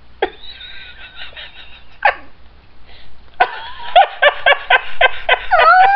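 People whimpering and squealing in disgust: high, squeaky cries, then from about three and a half seconds in a loud run of rapid pulsed whimpers, about five a second, ending in a drawn-out wavering wail.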